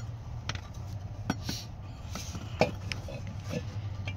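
Ford F-150's carbureted V8 idling with a steady low hum, now running after a fuel-starvation no-start, with several sharp clicks and taps over it.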